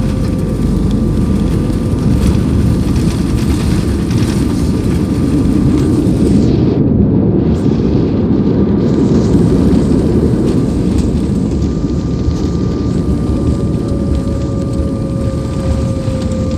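Airliner engine and airframe noise heard from inside the passenger cabin during landing: a loud, steady low rumble under a thin steady whine. The rumble swells a little in the middle, and near the end the whine drops slightly in pitch.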